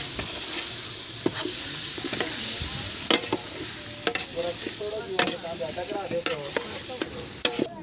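Raw chicken pieces sizzling in hot oil in an aluminium pot while a metal spatula stirs them, with a steady frying hiss. The spatula knocks and scrapes against the pot several times, about once a second.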